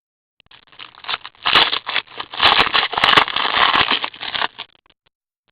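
Foil wrapper of a trading-card pack crinkling and tearing as it is ripped open by hand: a dense crackling that builds about half a second in and stops about a second before the end.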